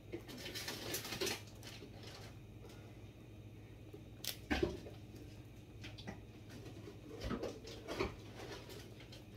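Scattered knocks, clatters and rustling of kitchen items being handled while someone rummages for things, with a sharp knock about four seconds in and a few more near the end, over a faint steady hum.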